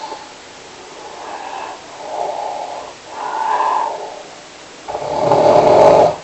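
Snoring: three moderate snoring breaths, then a much louder, deeper snore about five seconds in.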